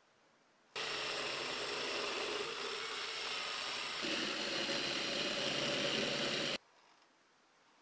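Black+Decker cordless drill spinning a polishing wheel against a small metal rod, running steadily. It starts abruptly about a second in, its tone changes about four seconds in, and it cuts off suddenly.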